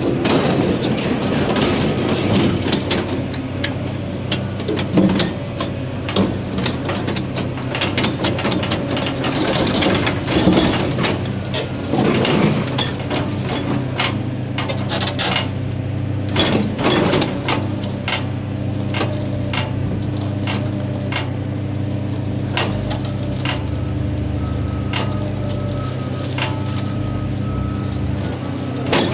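CAT 336D excavator running steadily with its Pamter hydraulic vibro-ripper attachment working, the tooth wedged in a crack in marble. Irregular sharp cracks and knocks come from the stone as it is split, thickest in bursts a third of the way in and around the middle.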